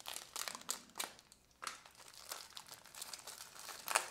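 Small plastic hardware-kit bag crinkling in the hands as it is cut open with a razor blade, in quick scattered crackles.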